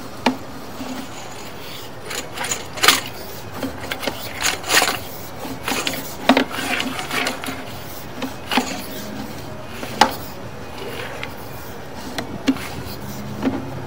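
Sewer inspection camera's push cable being fed down the line through a cleanout: irregular clicks, knocks and short scraping rasps as the rod slides and the camera head bumps along the pipe, over a steady low hum.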